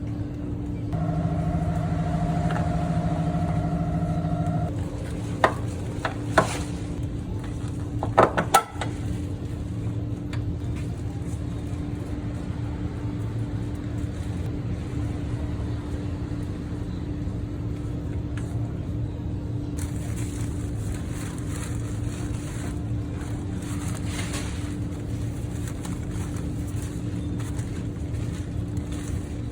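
Car engine running steadily with a constant hum. A separate steady tone sounds for a few seconds near the start, and several sharp clicks follow around the middle.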